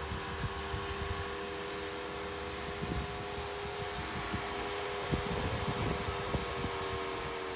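Jeep Wrangler Rubicon crawling slowly up slickrock, its engine and drivetrain running steadily with a constant whine-like hum, over irregular low buffeting of wind on the microphone.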